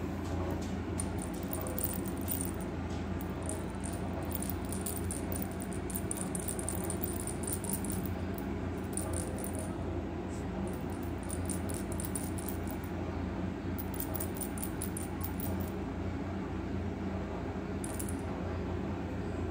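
Rapid, irregular rattling clicks in short runs as a cat paws and bites a plush toy fish, thinning out near the end, over a steady low hum.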